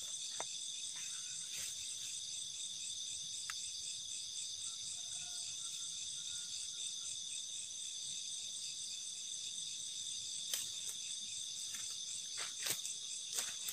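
Night insect chorus: crickets trilling steadily at several high pitches. There are a few short sharp crackles about ten seconds in and a cluster near the end.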